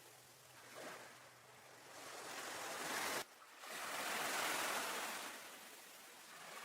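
Ocean waves washing onto a beach, a steady rush that swells and recedes. The sound drops out suddenly about three seconds in, then a second surge builds and fades.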